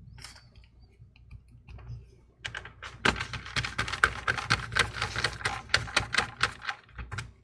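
Rapid, dense small clicks and light taps of hands handling small parts inside an open laptop, starting about two and a half seconds in after a few faint ticks.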